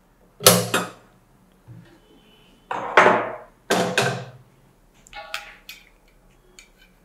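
Cookware being handled: several knocks and scrapes of a nonstick frying pan on a tabletop stove, then a brief metallic clink that rings about five seconds in.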